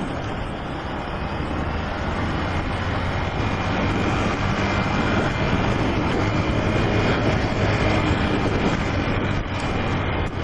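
Honda CG 125 Fan motorcycle being ridden: its single-cylinder four-stroke engine runs steadily under strong wind and road noise, the stock exhaust quiet.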